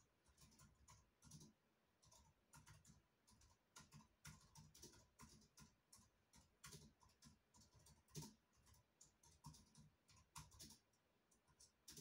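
Faint, irregular clicks and soft taps, several a second, over quiet room tone.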